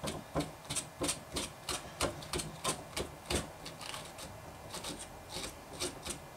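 Small hand brush raked repeatedly along a twisted-wire dubbing brush, scratching through its synthetic fibers in short strokes about three a second, to tease out and fluff the fibers.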